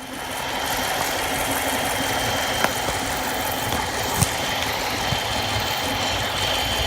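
2011 Dodge Charger's 5.7 L Hemi V8 running steadily, with a thin high steady whine over the engine noise and a few sharp clicks. This is the weird engine sound the owner is asking about.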